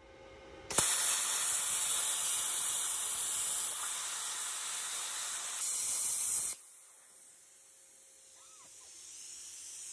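Electric arc welding on a steel plate: the arc strikes with a click about a second in, then a steady, loud crackling hiss that cuts off suddenly about six and a half seconds in as the electrode is pulled away.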